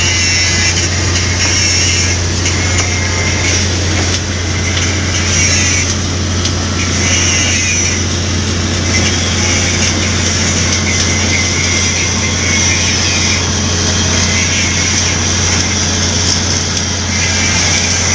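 Automatic pipe-welding machine running on a large-diameter pipe butt joint: a steady low hum with a hiss over it that swells and fades every second or two.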